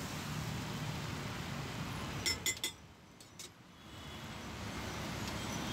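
Three or four sharp metallic clinks about two seconds in, a steel utensil striking a dosa griddle, over a steady low street rumble. The background dips briefly just after the clinks.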